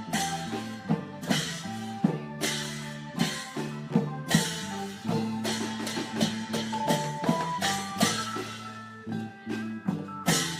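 Isan klong yao long-drum ensemble playing: regular drum strokes with cymbal crashes over a held melodic line that changes pitch every second or so.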